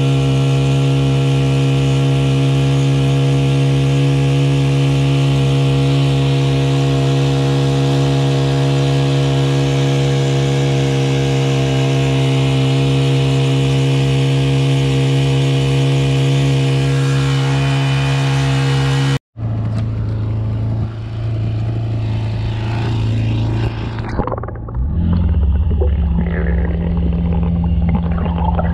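Honda GX50 50cc four-stroke air-cooled outboard running steadily at cruising speed as it pushes the kayak, with water rushing along the hull. About two-thirds of the way through, the sound cuts to an underwater recording: the engine and propeller are heard muffled through the water.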